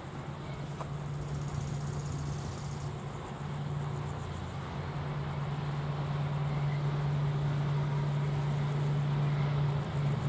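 AŽD 71 level-crossing signal active, its classic electric bell ringing rapidly and continuously. Under it runs a steady low engine hum that grows gradually louder.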